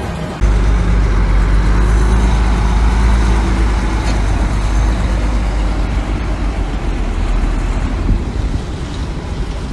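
Heavy diesel engine of construction machinery running steadily, a loud, deep rumble that cuts in abruptly about half a second in.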